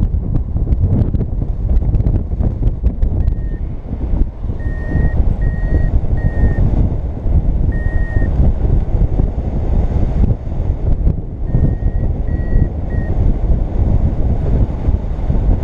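Wind rushing over the microphone in paraglider flight, with a variometer beeping at a steady high pitch in short runs, about 3 s in, from about 5 to 8 s and again around 12 s: the climb tone, signalling that the glider is rising in lift.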